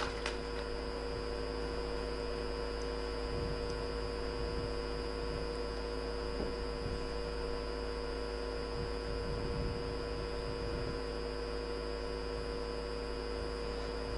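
Steady electrical hum made of several fixed tones, unchanging in level, with no ball strikes or other distinct sounds.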